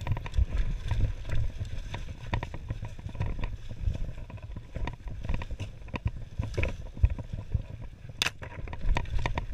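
Mountain bike rattling and clicking as it rolls over a rough dirt forest trail, with a steady rumble of wind on the microphone. There is one sharper knock about eight seconds in.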